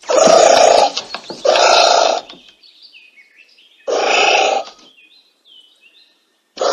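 Anteater calling: short rasping calls under a second long, three of them a second or two apart and a fourth starting at the very end, with faint bird chirps in the gaps.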